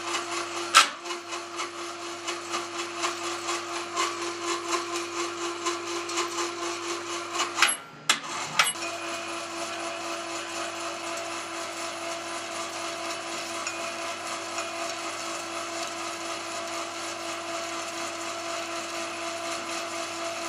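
Small electric wire-rope hoist running with a steady whine as its drum turns, with a regular pulsing about two or three times a second at first. About eight seconds in it stops with a click and starts again with another click a second later, then runs on steadily.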